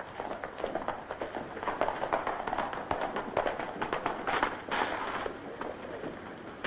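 Horses galloping: a rapid, dense clatter of hoofbeats.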